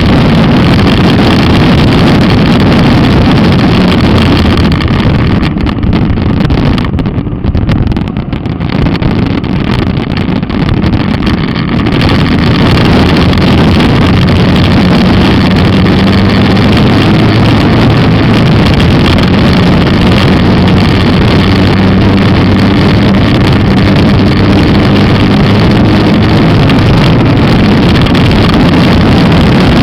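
Motomel Skua 250 motorcycle's single-cylinder engine running as it is ridden. It is loud throughout, drops back for several seconds about a fifth of the way in, then pulls steadily again.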